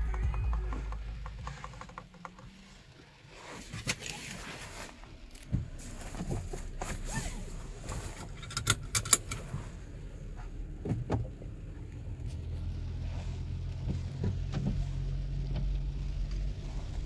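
Inside the cabin of a Polestar 2 electric car: scattered light clicks and knocks of things being handled, then a steady low hum that sets in about twelve seconds in.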